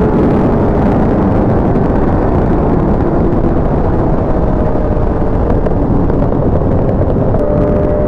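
Sport motorcycle engine running at steady highway speed under heavy wind rush, its tone faint beneath the wind. Near the end the engine note steps up to a higher pitch.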